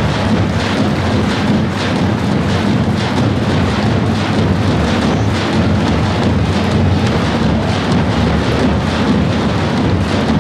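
A large group of Macedonian tapans, big double-headed bass drums, beaten together in a dense, steady rhythm: deep booms from the heavy beaters mixed with sharp cracks from the thin sticks.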